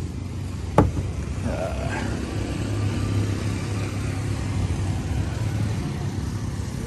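Steady low rumble of road traffic, with motorcycles and cars passing, and a single sharp knock about a second in.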